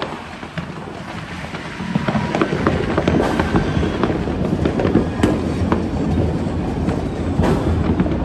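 Fireworks going off: a dense, continuous crackling and popping that grows louder about two seconds in, with several sharper bangs standing out above it.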